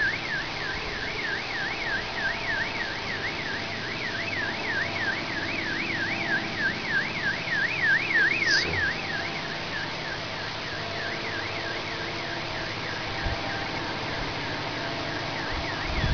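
Car alarm siren warbling up and down, about three sweeps a second, growing fainter about halfway through. Under it runs a steady background drone, which the uploader likens to an airplane motor.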